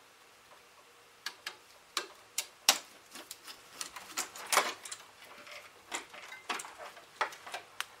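Screwdriver working the ground screw on a household receptacle while the bare copper ground wire is freed: a series of irregular sharp metal clicks and scrapes, starting about a second in.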